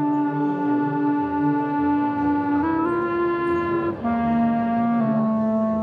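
Clarinet playing long, held low notes. The pitch steps up slightly about two and a half seconds in, drops to a lower note at about four seconds, and dips once more about a second later.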